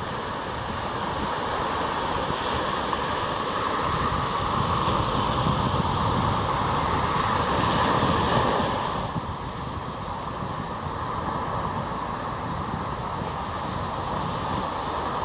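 Small sea waves breaking and washing up on a sandy beach. The surf swells louder to about eight seconds in, then eases.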